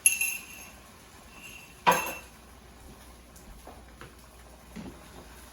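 Kitchenware clinking and knocking against a frying pan: a sharp knock with a short metallic ring at the start, a second, louder knock about two seconds in, then a few faint taps.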